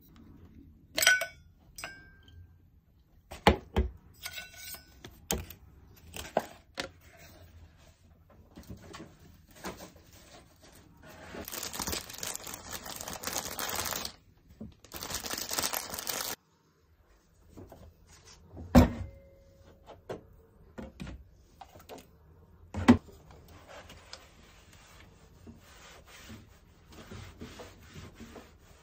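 Kitchen handling sounds: sharp knocks and clicks as a stainless mug and other items are handled and set down on the counter. Around the middle come two stretches of dense rustling noise a few seconds long, the second cutting off suddenly. Light wiping of wall tiles follows near the end.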